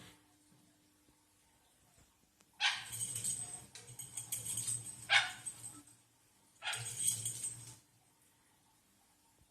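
Patagonian conure sneezing once about halfway through, a short sharp burst. Around it are stretches of rustling noise.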